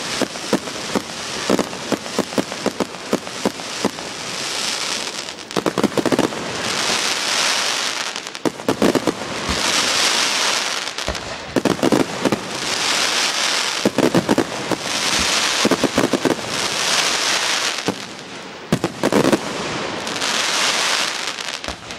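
Fireworks display: aerial shells bursting in quick clusters of sharp bangs every two to three seconds, each cluster trailing off into about a second of hiss.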